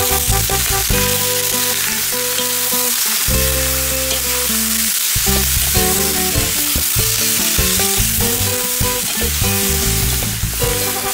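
Cubes of pork fat sizzling and frying in a cast-iron kazan, stirred and turned with a metal spatula, with background music playing over it.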